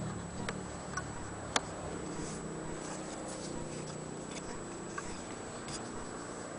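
A few light, sharp clicks, the loudest about a second and a half in, from an antique sewing machine's metal parts and the fabric held against it being handled, over a low steady hiss.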